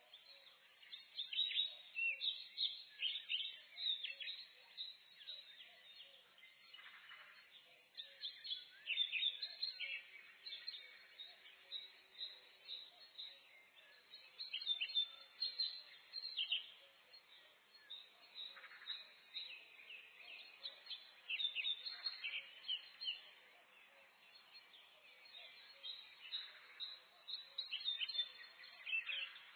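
Several small songbirds chirping and singing in overlapping short phrases and trills, in bursts of a few seconds with brief lulls, over a faint background hiss: a morning forest dawn chorus.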